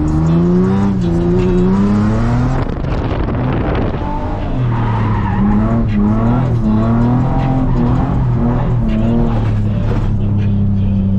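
Nissan 350Z's 3.5-litre V6 engine revving hard through a drift, its pitch climbing over the first couple of seconds, dipping briefly, then swinging up and down before settling to a steady drone near the end, with tyres sliding on wet, leaf-covered pavement.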